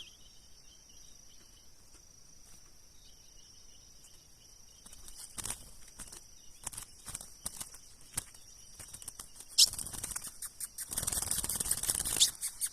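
Young azulão (ultramarine grosbeak) stirring: faint scattered clicks and rustles and a single short sharp chirp about ten seconds in, then a louder rustling stretch near the end.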